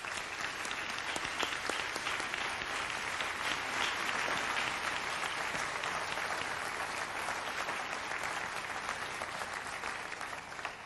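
Audience applauding steadily, with dense clapping that dies away at the very end.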